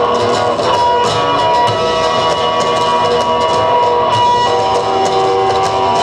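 Rock band playing live: electric guitars holding long sustained notes over bass and drum kit with steady cymbal hits, and no vocals.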